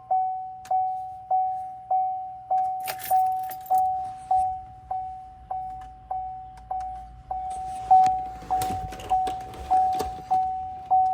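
2014 Chevy Silverado's dashboard warning chime dinging steadily, about one and a half dings a second. Keys jingle and click about three seconds in, and again from about halfway through.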